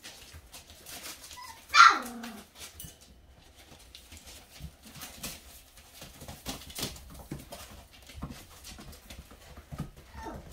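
Young puppies playing on newspaper: one loud yelp about two seconds in that drops sharply in pitch, and a fainter yelp near the end. Throughout, paws scratch and rustle the paper.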